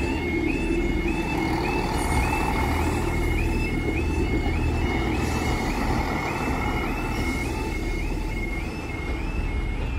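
UK level crossing's warbling two-tone alarm repeating about twice a second while a two-car diesel multiple unit runs past over the crossing.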